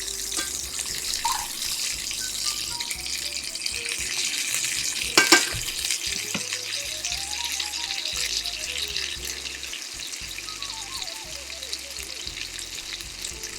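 Breaded chicken breast pieces frying in hot olive oil in a pan, a steady sizzle, with a single sharp knock about five seconds in.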